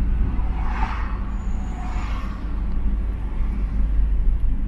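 Steady low engine and road rumble inside the cab of a moving delivery van, with two brief swells of hiss about one and two seconds in.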